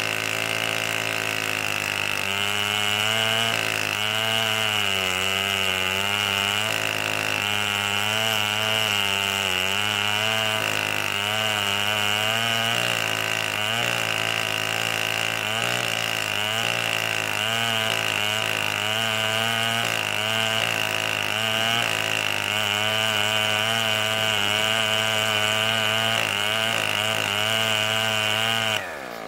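A 105cc two-stroke chainsaw with a rip chain runs at steady high revs, governed to about 8,500 rpm, while ripping a walnut log in a chainsaw mill. Its pitch wavers a little as the chain bites into the wood. The sound cuts off abruptly near the end.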